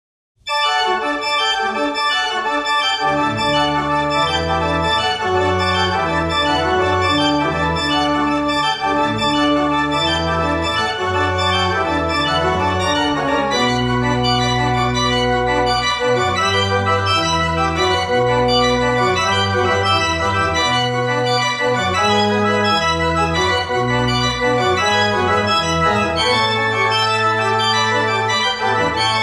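Two-manual church organ playing sustained chords over held bass notes, starting from silence about half a second in.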